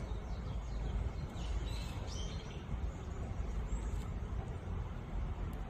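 Small birds chirping several times, most about two seconds in, over a steady low rumble.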